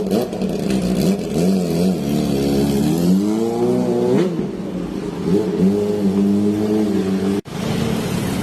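Kawasaki ZX-25R's 250 cc inline-four engine being revved in repeated blips, its pitch rising and falling, with one long climb and drop about four seconds in. The sound cuts out for an instant near the end, and the engine then runs on at a fairly steady speed.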